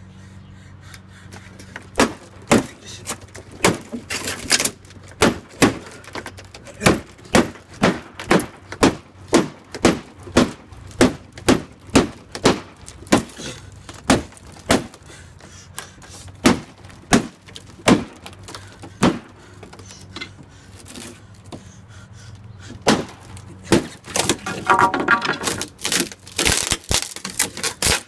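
Hammer repeatedly striking and splintering a thin wooden panel, about two blows a second, with a quicker flurry of blows and cracking wood near the end.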